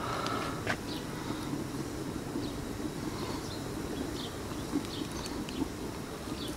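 Outdoor background of a steady low rumble with faint, scattered bird chirps. Light clicks of bamboo skewers against a wooden board, one of them about a second in.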